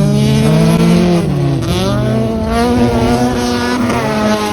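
Tuned gravel-rally car engine running hard at high revs. The revs drop briefly about a second in, then climb again and stay high.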